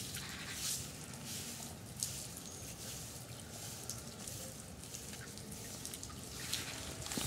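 Faint outdoor background hiss with a few soft clicks, one about two seconds in.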